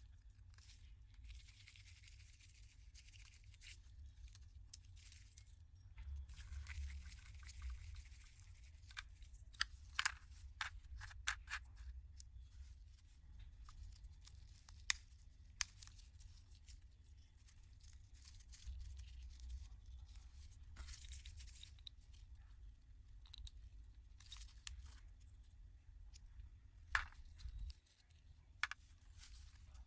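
Hand work on small parts: repeated bursts of high, hissy scraping or rubbing, with scattered sharp clicks and taps, over a faint steady low hum.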